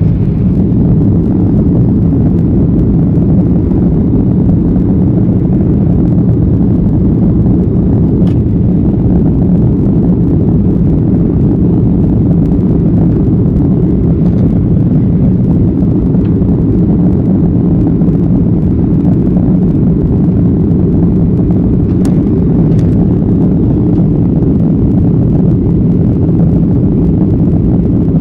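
Steady, loud low rumble of jet engines and airflow heard inside an airliner's cabin in flight, with a couple of faint clicks.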